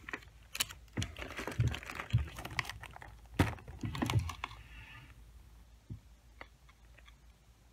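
Cardboard cupcake box and candy packaging being handled. A run of sharp clicks, crinkles and a few light knocks fills the first four seconds or so, then only faint scattered ticks.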